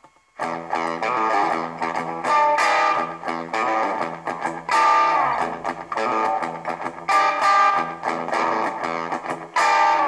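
Guitar-led background music that starts after a brief silence about half a second in.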